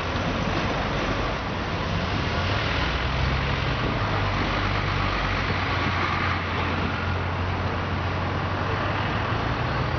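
Road traffic: a steady wash of passing cars and tyre noise, with the low hum of a heavy vehicle's engine joining about three seconds in and fading near the end.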